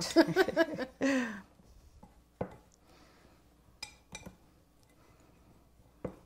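A brief voice at the start, then hands mixing a crumble topping in a small bowl: faint rustling with a few light knocks against the bowl.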